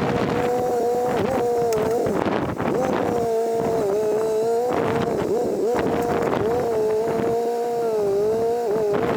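Homemade backhoe's engine running steadily, its pitch sagging briefly several times as it takes load.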